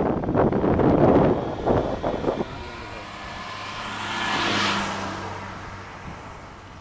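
Wind buffeting the microphone of a moving bicycle in the first couple of seconds, then a car passing the cyclist, its sound swelling to a peak about four and a half seconds in and fading away.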